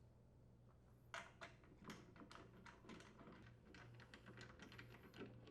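Faint, irregular clicking of a ratchet wrench with a 12mm socket unthreading the bolt that holds a lawn mower's front wheel, starting about a second in, several clicks a second.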